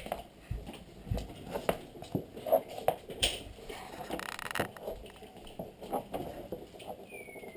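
Irregular light knocks and clicks, with a brief scraping rustle about four seconds in and a faint falling whistle near the end.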